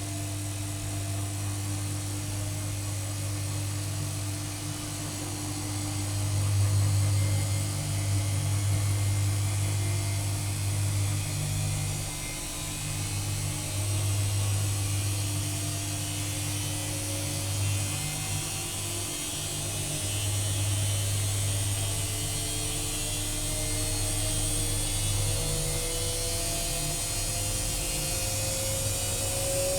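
AEG Öko-Lavamat 85769 washing machine running with a steady low motor hum; in the last several seconds a whine rises slowly in pitch as the drum speeds up.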